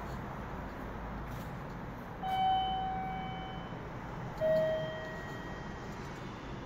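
Two electronic chime tones in a station concourse: a higher note about two seconds in that fades away over a second or so, then a lower note about two seconds later that fades faster, over a steady background hum.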